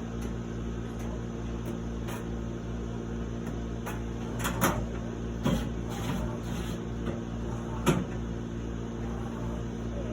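Three knocks, about a second apart, from dryer parts being handled and fitted back together during reassembly, over a steady background hum.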